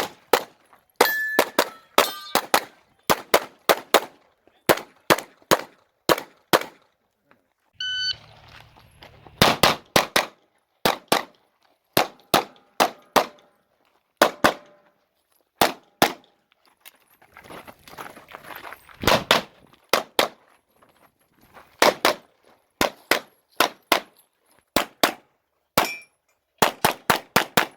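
Rapid strings of 9mm pistol shots from a Glock 45, mostly in quick pairs and small groups, with short pauses between strings. Steel targets ring when hit about a second in and again near eight seconds.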